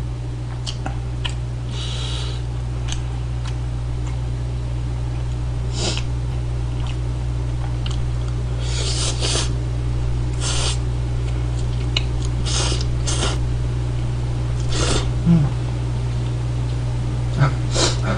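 A person eating spicy instant noodles (Buldak spicy chicken ramen): short slurps, chewing and sniffs every second or two as the chili heat makes his nose run. A steady low electrical hum runs underneath.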